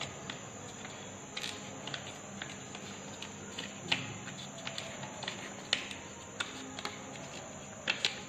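Colour paper being folded and creased by hand: a few scattered soft crinkles and taps, spread out over several seconds.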